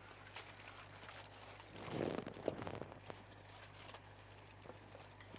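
Aluminium foil rustling and tongs clicking against a frying pan as a steak is turned over, with faint sizzling from the pan; the loudest rustle comes about two seconds in.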